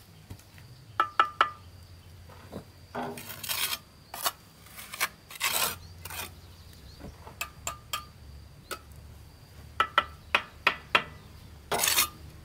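Steel bricklaying trowel knocking a brick down into its mortar bed in quick sets of three or four ringing metallic taps, between longer rasping scrapes of the trowel spreading and trimming mortar on the brick.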